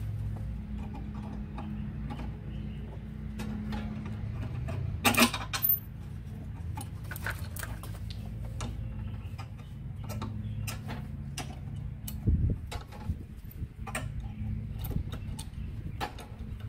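Screws and small hand tools clicking and clinking as hands work on a push mower's metal drive-control bracket, with a louder clatter about five seconds in and a dull thump about twelve seconds in, over a steady low hum.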